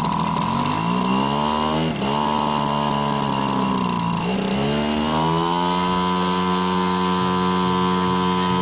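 Single-cylinder engine of a large RC model warplane running at high revs while held on the ground for a run-up. The pitch dips briefly about two seconds in, sags and climbs back around four seconds, then holds at a high steady note.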